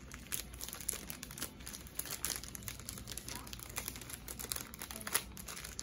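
Thin frosted plastic wrapping crinkling and crackling as fingers peel and fold it back, with many small sharp crackles.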